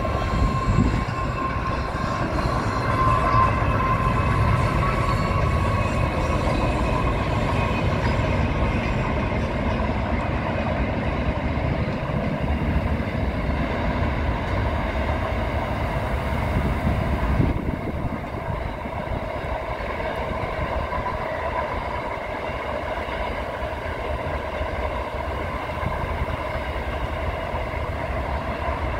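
Freight train wagons rolling past on the rails, a steady rumble with a thin high tone running over it; it eases off a little about two-thirds of the way through.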